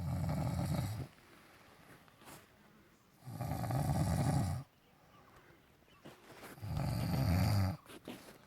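A person snoring: three loud, rasping snores about three seconds apart, each lasting about a second, with quiet breathing gaps between.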